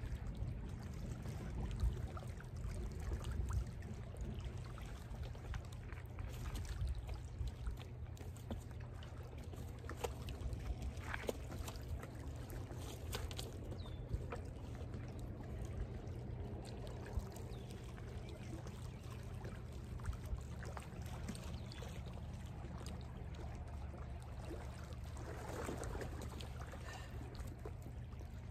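Small lake waves lapping and trickling at the shore over a steady low rumble of wind on the microphone.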